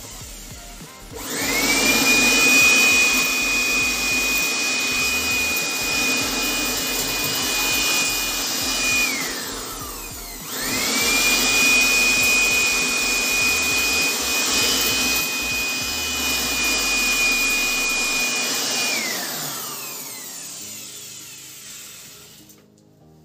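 A handheld electric air blower is switched on twice. Each time its motor whine climbs quickly to a steady high pitch over a rush of air and holds for about eight seconds, then falls away as it is switched off and spins down.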